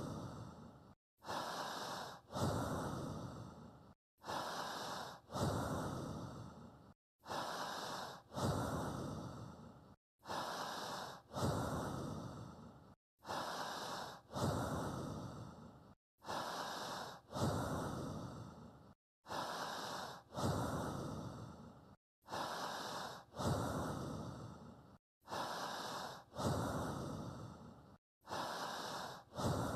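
Recorded human breathing in a steady paced loop: a short breath, then a longer one that fades away, then a brief silence, repeating about every three seconds. It is a breathing guide to breathe along with in sync.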